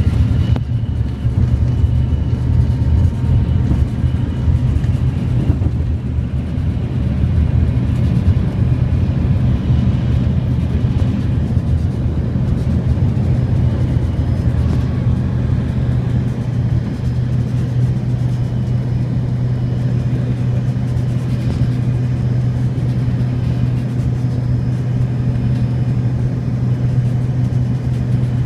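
Jet airliner's engines at takeoff thrust heard from inside the cabin: a loud, steady low rumble. It is rougher in the first several seconds while the plane is still on the runway and evens out once it is climbing.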